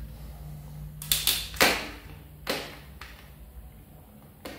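Left-hand Shimano 105 STI shift lever clicking through its front-derailleur positions as it pulls and releases the bare shift cable: a function test through big ring, trim, small ring and small-ring trim. About five sharp clicks come at uneven spacing.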